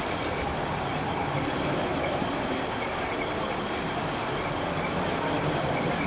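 Dump truck's diesel engine running steadily at low speed as the truck creeps forward.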